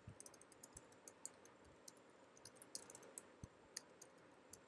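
Faint computer keyboard typing: a quick, irregular run of key clicks.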